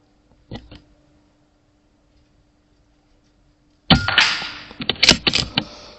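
Airmaks Krait L .22 pre-charged pneumatic air rifle fired, a single loud, sudden shot about four seconds in, followed by a quick run of sharp knocks and rattles lasting under two seconds. Two faint clicks come about half a second in.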